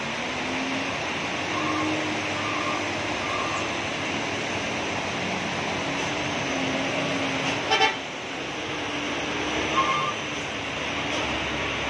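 Truck engines working up a steep wet hairpin over a steady hiss of rain and tyres, with a few short beeps in the first seconds. A short horn toot sounds about eight seconds in, and another brief burst near ten seconds.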